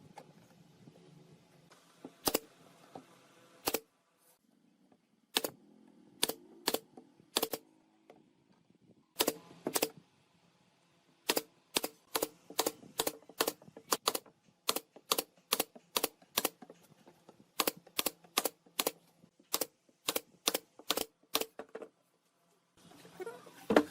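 A hammer or mallet tapping on wood: sharp knocks with a slight ring, a few spaced strikes at first, then steadier runs of two to three taps a second with short pauses between them.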